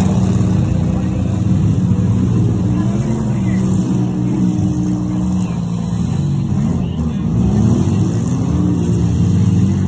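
Demolition derby cars' engines running and revving, their pitch rising and falling again and again as several cars push around the arena.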